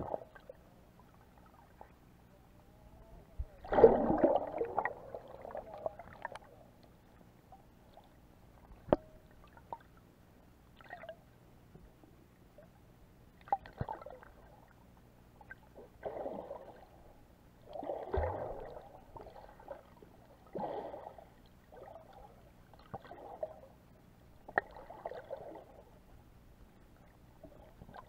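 Muffled water sounds picked up by an action camera held underwater: gurgling swishes that come and go every one to three seconds, with a few sharp clicks and knocks between them.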